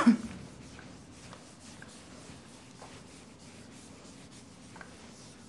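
Faint scratching of chalk on a blackboard, with a few small ticks. It follows a short loud burst that dies away in the first split second.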